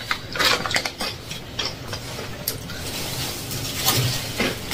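Irregular crisp crunches and crackles from crunchy chips being eaten and handled, a sharp crack every fraction of a second with no steady rhythm.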